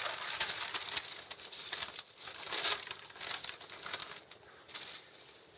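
A thin sheet of paper rustling and crinkling as it is lifted off a flattened cardboard box and handled, in uneven rustles that die away near the end.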